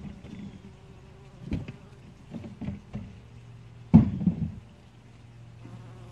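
Bumblebee buzzing at its ground-nest entrance, a low steady hum. Several low thumps come through, the loudest about four seconds in.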